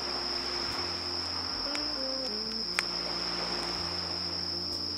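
Crickets trilling in one unbroken high tone over slow, gentle background music of held notes with a low bass. A wood fire crackles, with one sharp pop near the middle.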